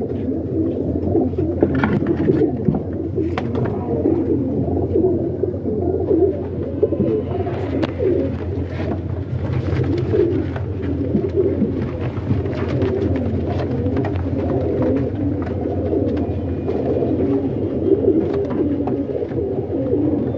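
A flock of domestic pigeons cooing continuously, many overlapping voices warbling together, with occasional light clicks and rustles.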